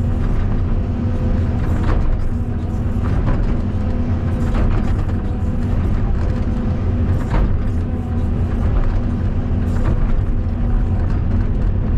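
Caterpillar 320D2 hydraulic excavator's diesel engine running steadily under working load as the bucket is brought down cutting the slope, with a few short knocks every two to three seconds.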